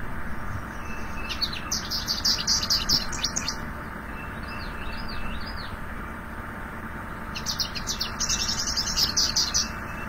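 Recorded American goldfinch song played back: two long bouts of rapid, high twittering and warbling notes, with three or four separate slurred notes between them.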